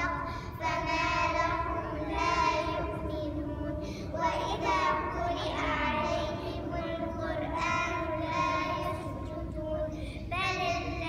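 Young girls singing a melody into a handheld microphone, with long held notes and glides between them, over a steady low rumble.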